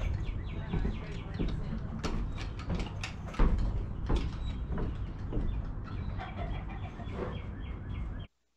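Irregular knocks and clatter of footsteps and work on a plywood loft floor, over repeated high bird calls. The sound cuts off abruptly near the end.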